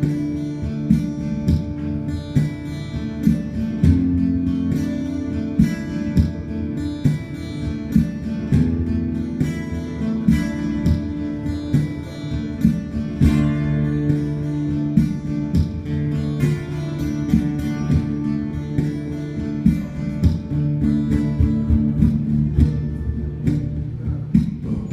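Acoustic guitar played live, strummed in a steady rhythm, with no singing.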